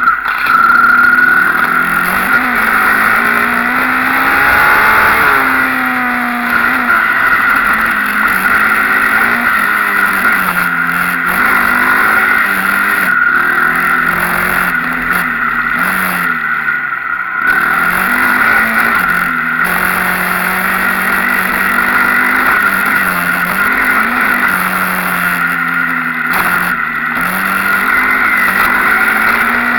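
Dirt bike engine running under throttle, its pitch rising and falling as the rider accelerates and eases off, with a deeper dip about two-thirds of the way through.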